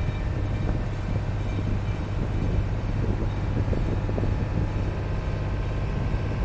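A sailboat's inboard engine running steadily at low speed, a constant low hum under some wind and water noise, as the boat holds position under power.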